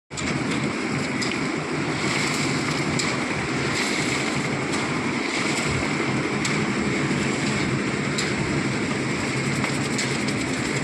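Steady rumbling noise of a vehicle in motion, with faint clicks about every second and a half or two.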